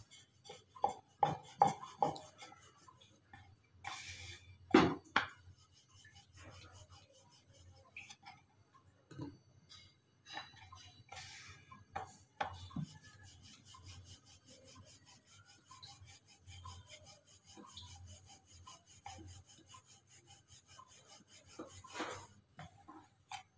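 Wooden rolling pin rolling and rubbing over floured paratha dough on a wooden board, with scattered light knocks of wood on wood. The knocks are loudest a second or two in and again about five seconds in.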